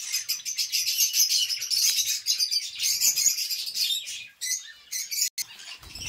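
A flock of caged lovebirds chirping nonstop, many high calls overlapping, easing briefly a little past four seconds in.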